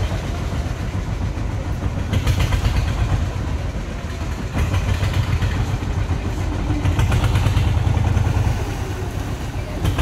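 Wooden fishing boat's inboard engine running as the boat pulls away from the riverbank, a steady low throb that swells and eases a few times.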